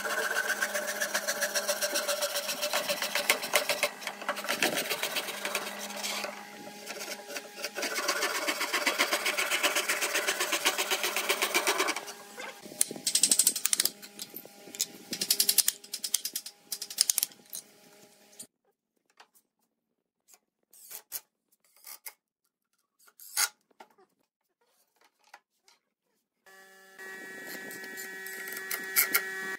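Pull saw cutting a wooden board in fast, steady strokes, its teeth rasping. It is followed by scattered wooden knocks and a quiet spell, and near the end a cordless drill starts up with a steady whine.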